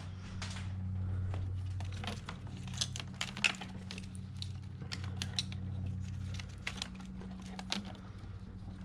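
Scattered light clicks and taps of small engine parts and bolts being handled during fitting of a fuel injector supply manifold. A steady low hum runs underneath.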